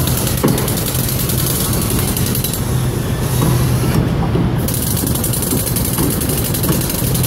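Tower crane machinery running: a steady low hum with light rattling and scattered clicks.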